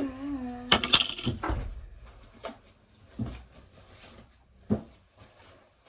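Front entrance door swinging shut on its overhead closer and latching with a sharp bang about a second in, followed by a few scattered soft thumps and rustles of things being handled.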